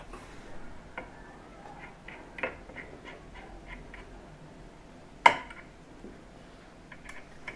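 Small metallic clicks and taps of a grinding-wheel mandrel being fitted into an opened drill chuck, with one sharper click about five seconds in.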